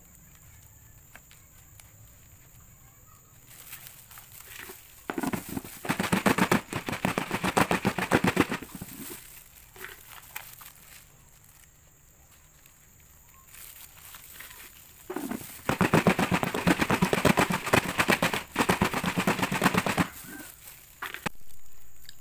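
Crispy fried instant noodles tossed in a plastic bowl to coat them with balado seasoning powder. There are two bouts of dense crackling and rattling, each about four seconds long, with quiet in between.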